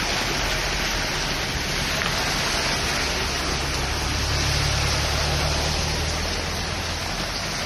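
Heavy rain pouring steadily onto a flooded road, with the hiss of car tyres through standing water. A car engine's low hum builds about a second and a half in, is strongest in the middle and fades near the end.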